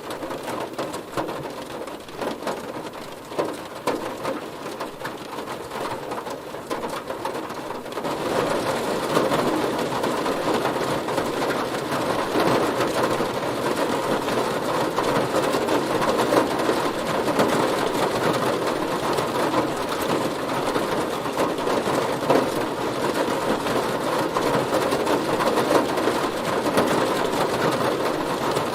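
Heavy rain drumming on a car's body, a dense steady patter of drops that turns heavier and louder about eight seconds in.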